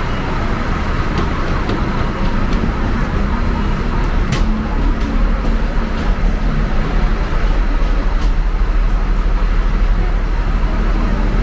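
Steady low rumble of buses and road traffic, with a few light clicks and one sharper click about four seconds in.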